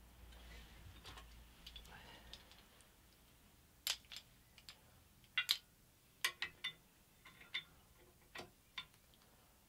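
A scattering of sharp clicks and light knocks, about a dozen in small clusters over the second half: hard objects being handled and set down around the pillar drill, such as a wooden block and clamp being fetched and placed.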